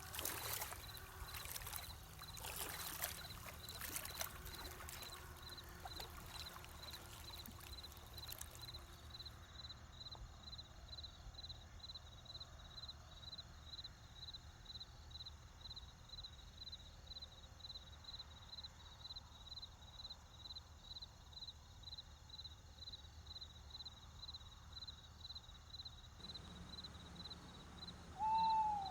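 Quiet ambience with a steady high chirping, about two or three chirps a second, and rustling noise in the first several seconds. Near the end comes a single short hoot that rises and falls.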